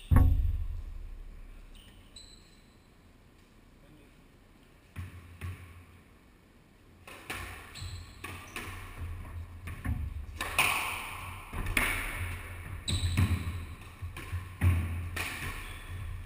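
A sharp knock that rings and dies away right at the start, then a few ball bounces. From about seven seconds in, a squash rally: the ball cracks off rackets and the court walls again and again, and players' shoes move over the wooden floor.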